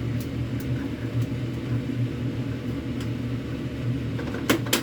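Gas stove burner running with a steady low rumble. A few sharp clicks come near the end.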